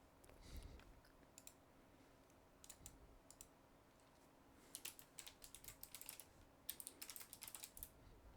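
Faint computer keyboard typing: a few scattered keystrokes or clicks, then a fast, steady run of typing from about halfway through.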